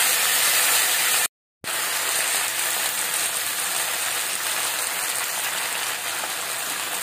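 Hot oil sizzling steadily in a pan as a heap of fresh herbal greens sautés with garlic, black pepper and cumin. The sound drops out completely for a moment about a second in, then the sizzling carries on.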